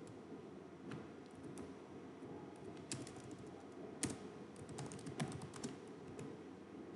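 Computer keyboard being typed on: irregular key clicks, with a few sharper keystrokes about three, four and five seconds in.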